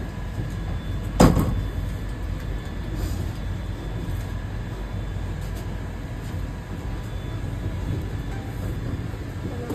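Vande Bharat Express train running, a steady low rumble, with one sharp thump about a second in.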